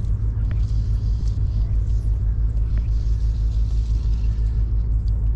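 A steady low rumble, with a few faint ticks above it.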